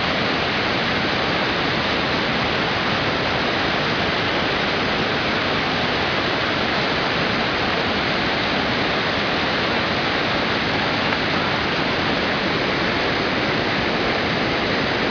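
Loud, steady rush of fast-flowing water.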